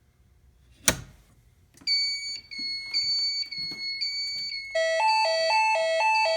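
A sharp click as the mass notification alert is triggered, then a high electronic beeping tone sequence, which about two thirds of the way through gives way to a louder, lower two-tone hi-lo alert tone, about two alternations a second. This is the Fire-Lite ECC-50 voice evacuation panel's alert tone over the speakers ahead of the severe weather message.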